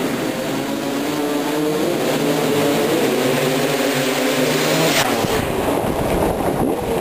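Two-stroke 250cc dirt bike engines revving and running under throttle, the pitch shifting up and down, with a sharp crack about five seconds in followed by rising revs.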